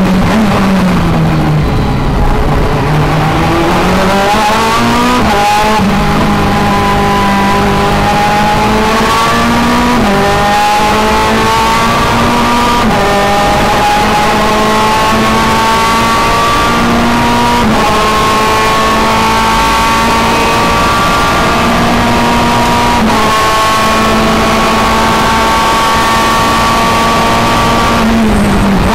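Ferrari F430 GT2 race car's V8 engine heard from inside the cockpit under full acceleration: after a brief dip in pitch at the start, the revs climb and drop sharply at each upshift, from second gear up to sixth. Near the end the revs fall as the driver lifts off for braking.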